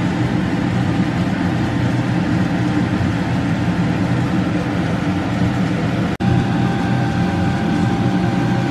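Steady low hum and rush of kitchen cooking noise as food cooks on the hob. It breaks off for an instant about six seconds in, and a faint steady whine joins after that.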